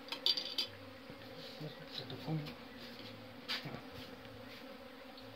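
Honey bees buzzing as they fly about, the hum coming and going, with a few light clicks near the start.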